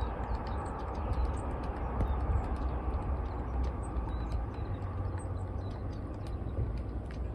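Faint, scattered high chirps of small birds over a steady low rumble and hiss of outdoor ambience.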